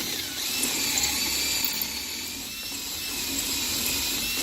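Power drill spinning a reamer to enlarge a bolt hole for a shear pin, a steady high motor whine that wavers slightly in pitch.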